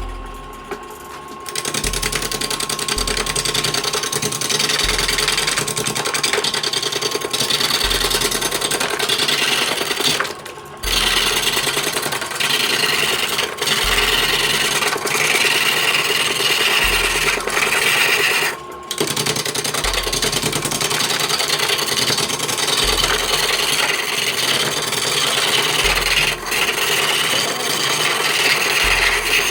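Wood lathe turning soft wood, a gouge cutting into the spinning log with a steady scraping hiss that stops briefly twice as the tool is lifted.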